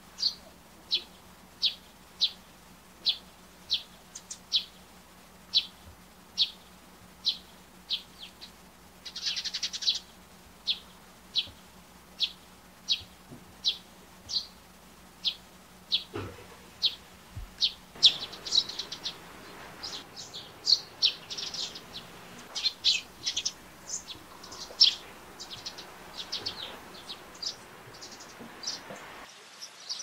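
Eurasian tree sparrow chirping: a steady run of short single chirps, roughly one every two-thirds of a second, with a brief flurry of calls about ten seconds in. From about eighteen seconds the chirps come faster and more irregularly.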